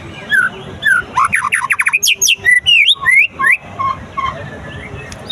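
White-rumped shama (murai batu) singing a fast, varied run of whistles and quick rising notes, busiest in the middle, then a few short low whistles near the end. It is a bird being tried for song just after its moult.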